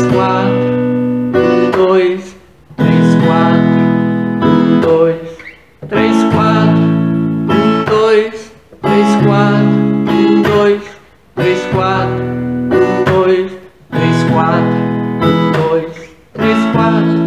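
Acoustic guitar strummed in the Jovem Guarda rhythm, played as seven short phrases of about two seconds each, every phrase broken off by a brief stop before the next.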